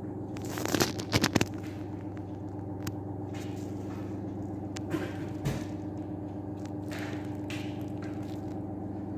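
Steady low mechanical hum, with a quick cluster of knocks and scrapes about a second in and two softer knocks around five seconds in.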